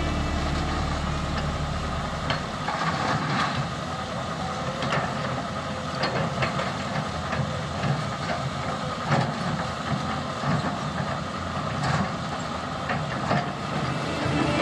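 Small electric motors and gearboxes of a radio-controlled model excavator whirring as it works, with scattered clicks and knocks.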